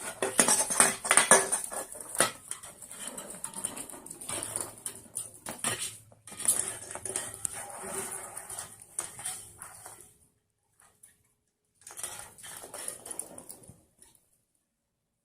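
Rapid clinking and clattering of hard objects, like dishes or cutlery being knocked about, for about ten seconds, then a shorter burst of it a couple of seconds later.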